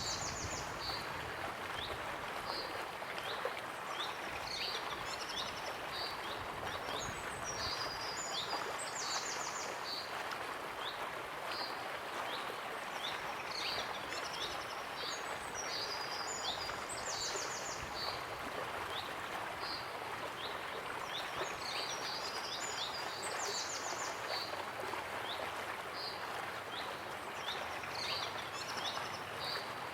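Waterfall rushing steadily, with songbirds calling over it in short high chirps and quick trills that recur every few seconds.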